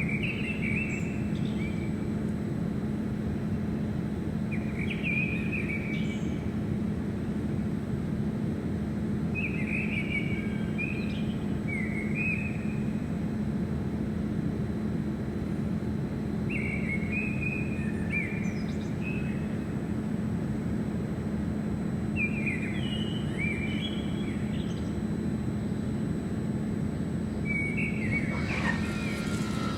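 A songbird singing short phrases about every five seconds over a steady low rumble and hum. In the last second or so, another noise begins to rise.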